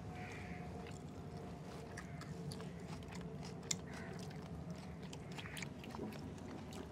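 Quiet chewing, with faint small clicks as fingers mix rice on a plate while eating by hand.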